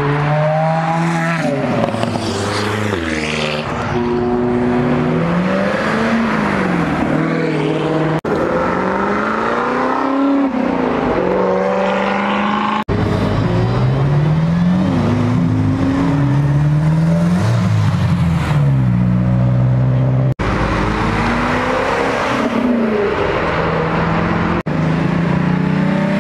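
Several sports cars, one after another, accelerating hard away, their engine notes rising and dropping in pitch with each gear change. The sound switches abruptly a few times as one car gives way to the next.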